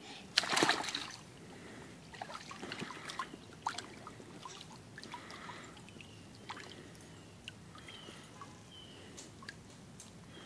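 Shallow water in a small inflatable kiddie pool splashing and sloshing as a toddler wades and moves about, with one louder splash about half a second in and lighter splashes and drips after.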